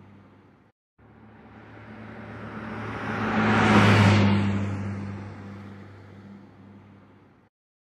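A car driving past: its engine note swells to a loud peak about four seconds in, then fades away, starting and ending with short breaks of silence.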